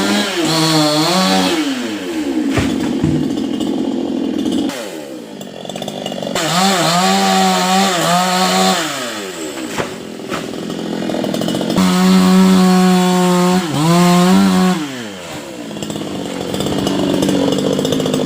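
Two-stroke chainsaw cutting a coconut palm, revved to full throttle and dropped back to idle about three times, its pitch rising, holding, then gliding down.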